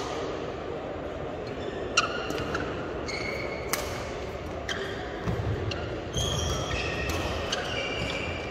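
Badminton rally: sharp racket strikes on the shuttlecock at irregular intervals, with short squeaks of shoes on the court mat, echoing in a large hall.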